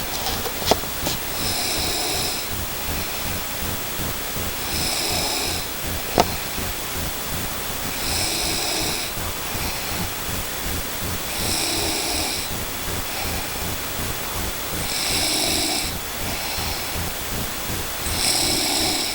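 A sleeping person snoring, one snore about every three seconds, six in all, each followed by a softer breath. A single sharp click sounds about six seconds in.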